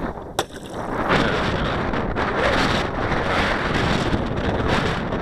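Wind buffeting the camera microphone as a loud, steady rushing, with a single sharp click about half a second in.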